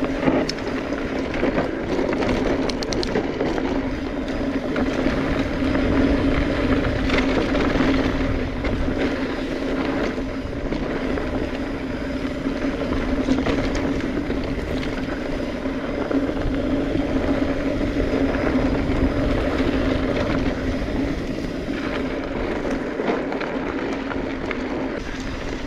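Mountain bike rolling along a dirt trail: steady tire noise and wind rushing over a chest-mounted camera, with scattered small rattles and clicks.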